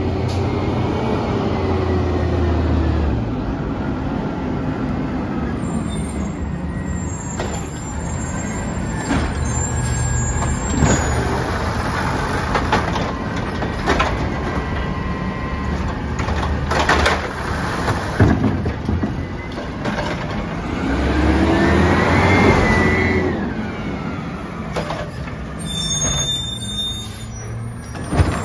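Peterbilt 320 compressed-natural-gas automated side-loader garbage truck running, its engine rising and falling in pitch as the hydraulic arm works, with air-brake hiss and several sharp clunks as the arm grabs, lifts and dumps a plastic recycling cart.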